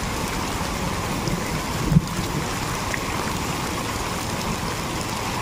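Steady rushing outdoor noise from the field footage, with one short thump about two seconds in.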